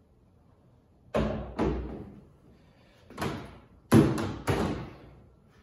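Steel tool-chest drawer being lined up and pushed onto its slides: a series of sharp clunks and knocks, two about a second in, then a louder cluster around four seconds.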